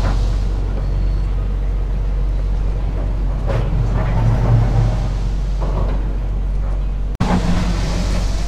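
Steady low outdoor rumble with faint distant voices, cutting out for an instant about seven seconds in.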